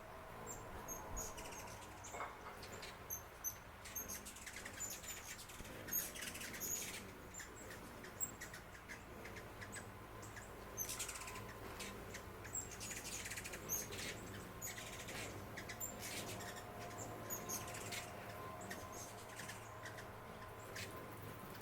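Small birds chirping outdoors: many short, high chirps scattered irregularly, some in quick pairs.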